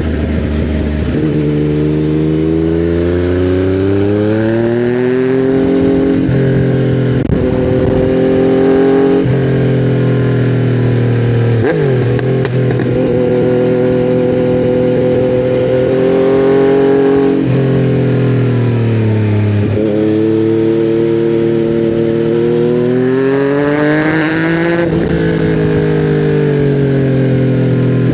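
2020 Yamaha MT-09's 847 cc inline-three engine, breathing through custom headers and a titanium Akrapovic silencer, pulling hard on the road: the engine note climbs and drops again and again as the bike accelerates and changes gear, about six times.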